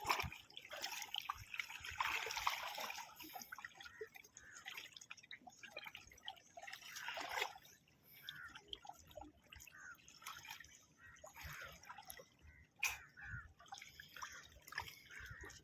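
Faint, irregular water sounds: dripping and trickling, with small splashes, and a single sharp click about thirteen seconds in.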